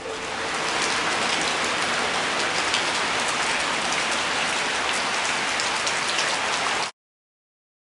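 Steady rain falling on open water, a dense even patter that cuts off abruptly about seven seconds in.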